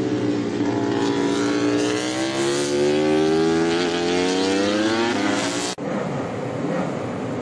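MotoGP racing motorcycle engine accelerating, its pitch climbing steadily for about five and a half seconds. It then cuts off abruptly to a rougher, noisier engine sound.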